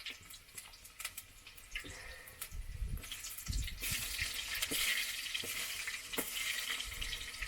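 Onions and tomatoes sizzling in hot cooking oil in a saucepan, with scattered clicks and scrapes of stirring; the sizzle grows much louder about three seconds in.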